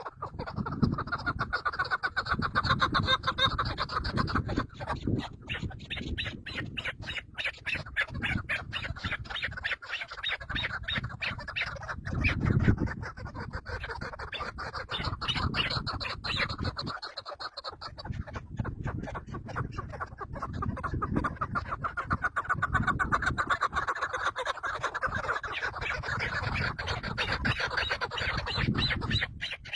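A bird calling in rapid, harsh, repeated notes, with brief pauses about ten and seventeen seconds in.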